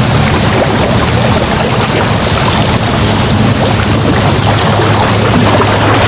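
Ocean waves and surf: a loud, unbroken wash of water noise, with a steady low drone underneath.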